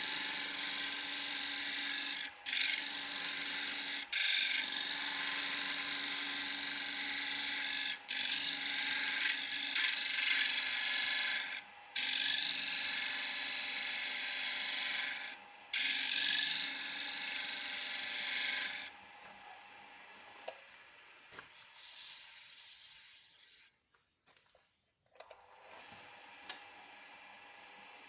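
Wood lathe running with a chisel cutting into the spinning wood: a steady scraping hiss over a faint motor hum, broken by several brief pauses. About two-thirds of the way in the cutting stops and only a much fainter sound remains.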